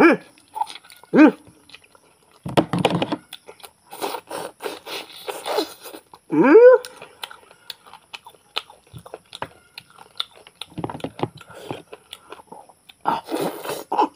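A man chewing and biting into cooked goat mutton leg, making many small clicks from mouth and meat, with three short rising hums: one at the start, one about a second in, one past the middle.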